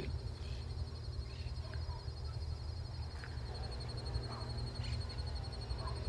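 Countryside ambience: a steady, high-pitched insect trill, a few faint scattered bird calls, and a low steady rumble underneath.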